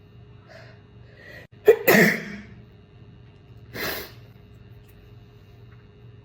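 A person sneezes once, loudly and suddenly, about two seconds in, set off by a nasal swab in the nose. A couple of faint catches of breath come before it, and a shorter, softer burst of breath follows about two seconds later.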